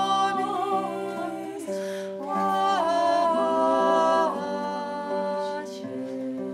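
Singing: a slow song with long held notes that glide from one pitch to the next.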